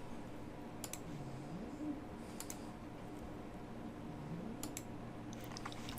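A few scattered computer mouse clicks, over a low steady hum.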